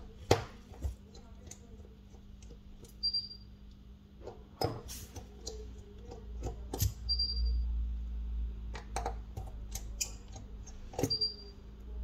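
Small tools and phone parts clicking and tapping on a workbench during the disassembly of a smartphone, with a short high tone about every four seconds.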